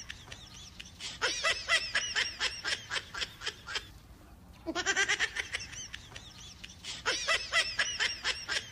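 High-pitched giggling laughter in quick runs of about five pulses a second, with a short lull before it starts again. The same laugh repeats exactly about six seconds on, so it is a looped laughter sound effect.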